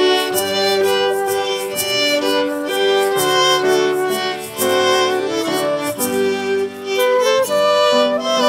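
Live folk band playing a waltz, led by fiddle, with flute, squeezebox and piano.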